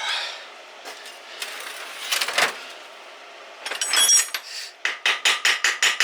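Metal hand tools knocking and clinking on an engine being taken apart, with a ringing clink about four seconds in, then a quick, even run of about seven clicks a second near the end.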